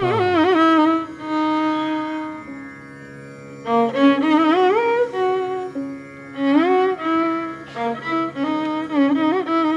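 Instrumental music: a single melody line full of sliding pitch bends and wavering notes over a steady low drone.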